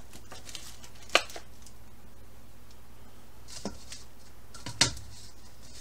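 Gloved hands patting raw meatloaf down into a foil pan lined in a slow cooker: soft handling noise with a few sharp clicks of the foil pan and liner, the loudest about a second in and near the end, over a steady low hum.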